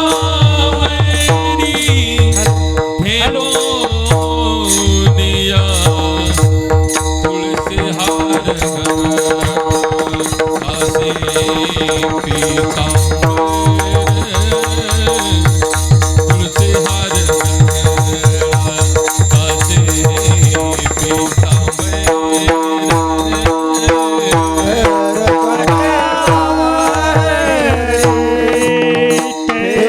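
Marathi devotional kirtan music: a held melody over a steady drone, with a hand drum and small cymbals keeping a quick, even beat.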